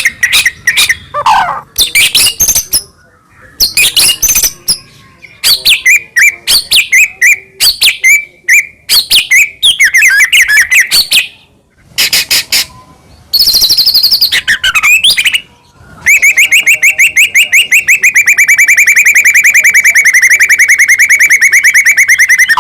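White-rumped shama (murai batu) singing loudly: a fast, varied run of whistles, chirps and clicking notes, then a long rapid trill lasting about six seconds near the end.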